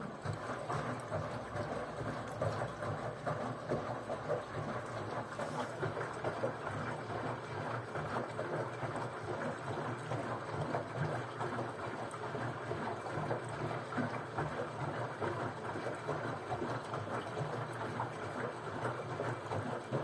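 LG Direct Drive front-loading washing machine tumbling its empty drum during a hot-water cleaning cycle: water and suds sloshing and splashing inside the turning drum over a low rumble, as one long wash stroke that starts abruptly and stops after about twenty seconds.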